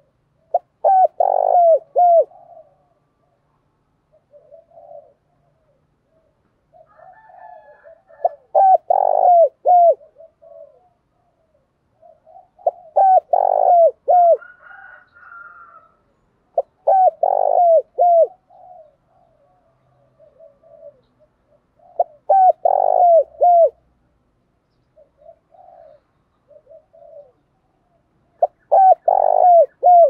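Spotted dove cooing: six loud song phrases of a few quick notes each, repeated every four to six seconds, with softer low notes between them.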